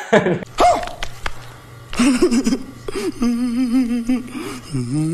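Brief laughter, then from about two seconds in a man's exaggerated comic crying wail that wavers up and down in pitch in long drawn-out sobs.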